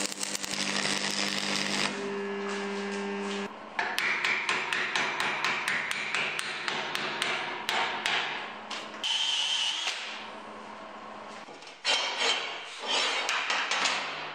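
Stick-welding arc crackling steadily with a low hum for the first few seconds as a galvanized steel coupler nut is welded to a flat-steel clamp arm. It is followed by a run of quick hammer strikes, metal on metal, on the fresh weld bead, with a second burst of strikes near the end.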